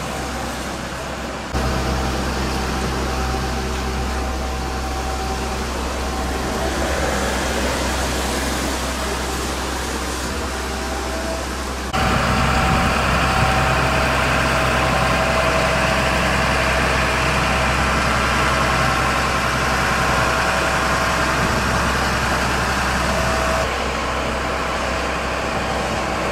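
Diesel engine of a Mercedes-Benz overhead-line work truck running at low revs as it crawls ahead of a tram, a steady hum with low rumble, louder from about halfway through.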